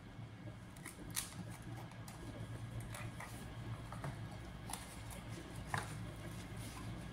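Faint scattered taps, scrapes and rustles of a cardboard product box being handled and turned over by hand, over a low steady hum.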